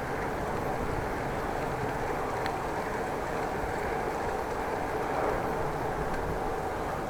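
Steady rumble of road and wind noise from a bicycle ride, picked up by an action camera's microphone.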